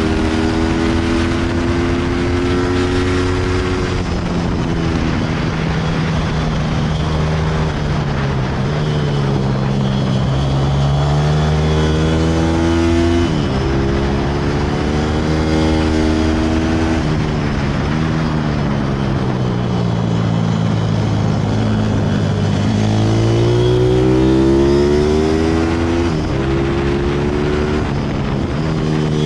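Pit bike's single-cylinder engine under hard throttle on track, its pitch climbing and falling as the rider accelerates and slows through the corners. A few sudden drops in pitch mark gear changes, over a steady rush of wind.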